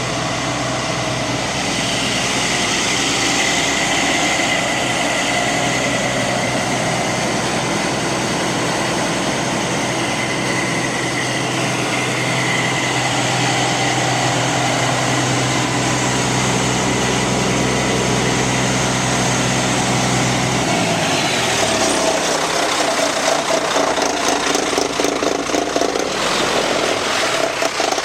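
Truck's Cat C-10 inline-six diesel engine running steadily. About three quarters of the way through, its pitch drops, and the sound turns rough and uneven, with rapid fluttering near the end.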